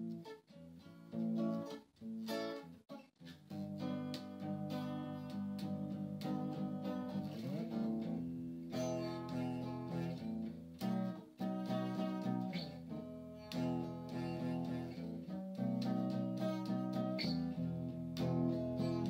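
Background music: acoustic guitar, picked and strummed.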